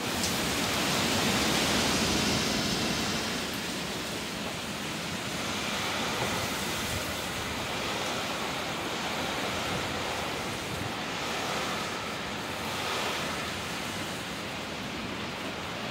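Heavy hurricane rain pouring onto a metal patio roof and the soaked yard, with gusting wind. The rush is loudest over the first few seconds, then settles to a steady downpour.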